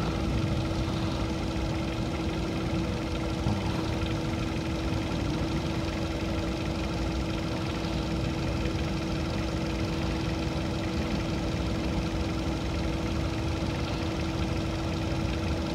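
A steady machine drone, engine-like, with a constant pitched hum over a low rumble, unchanging throughout.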